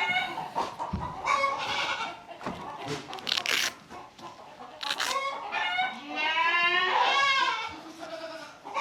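Barnyard animals calling: chickens clucking and squawking in short calls, and a goat giving one long, wavering bleat about six seconds in.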